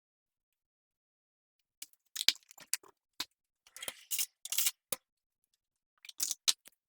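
Kitchen items being handled on a counter: after about two seconds of silence, a run of short sharp clicks and rustles, a pause, then a few more near the end.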